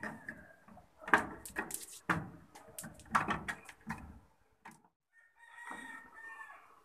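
Chickens clucking and a rooster crowing once near the end, mixed with a few sharp knocks in the first half.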